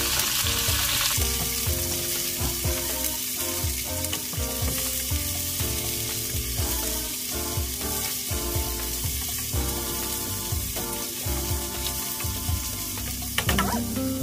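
Strips of carrot sizzling in hot oil in an aluminium pot while a nylon ladle stirs them, over soft background music.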